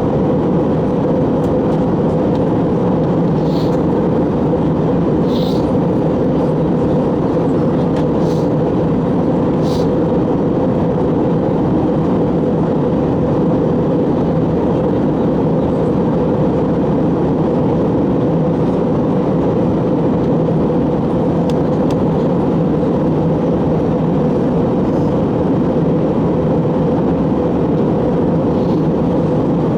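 Steady cabin noise of an Airbus A321 in flight, the engines and airflow giving an even, unbroken rumble, with a few faint ticks in the first ten seconds or so.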